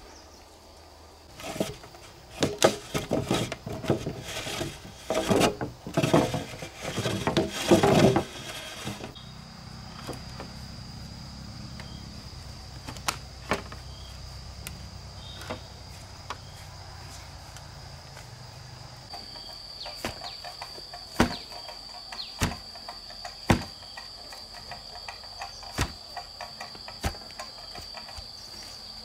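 For several seconds, loud irregular clattering and rustling from work at the site, then a steady high-pitched insect drone, likely crickets or cicadas. The drone grows louder about two-thirds of the way through, with scattered sharp taps or knocks over it.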